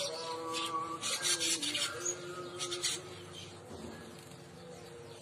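Caged manyar (weaver bird) giving its buzzy, rasping song: two hissing, sizzling phrases, the first about a second long and the second shorter, under fainter steady lower notes.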